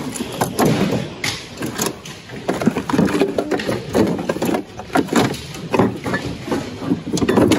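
Rummaging through a bin of mixed donated household goods: hard objects such as plastic, metal and crockery knocking and clattering together at an irregular pace as things are pushed aside and lifted.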